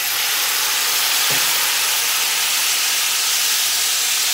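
Water poured into a hot Dutch oven onto the oil around a seared chuck roast, flashing to steam with a loud, steady hiss that starts sharply and holds. This is a braising step, with water added a little at a time and left to steam off.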